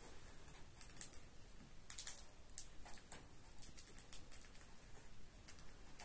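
A parrot cracking seeds in its beak: a run of irregular, sharp little clicks and cracks.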